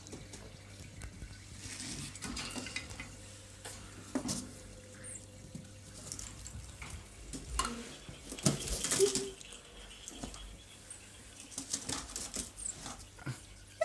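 Scattered light clicks, knocks and rustling from inside a small pet cage, as a baby marmoset moves around on perches and wood-shaving bedding.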